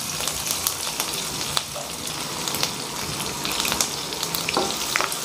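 Turkey berries, shallots, green chillies and garlic sizzling in sesame oil in a nonstick frying pan: a steady hiss full of small crackles, with a couple of sharper clicks near the end.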